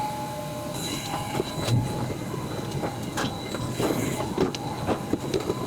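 Plastic oil bottles and a funnel being handled while engine oil is poured in: irregular knocks and rattles.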